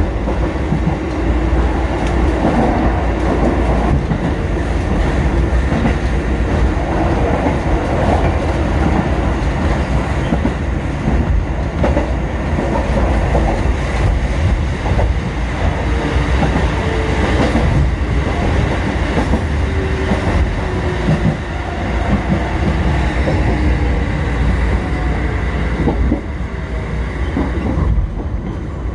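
Kotoden 1080/1100-series four-car electric train running between stations, heard from inside the front car: a steady rumble with the wheels clacking over rail joints.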